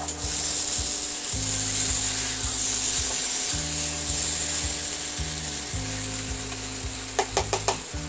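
Spice-coated jackfruit, potatoes and prawns sizzling as they are sautéed in a non-stick kadai and stirred with a spatula, with a few quick taps of the spatula against the pan about seven seconds in. Soft background music plays underneath.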